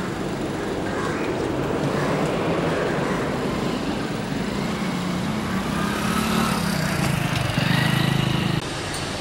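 A motor vehicle engine running amid street noise, growing louder over the last few seconds and then cutting off suddenly near the end.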